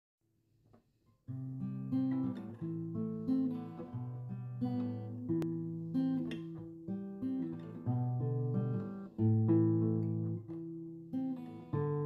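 Acoustic guitar music: a slow run of plucked notes and chords, starting about a second in and ending on a chord left ringing.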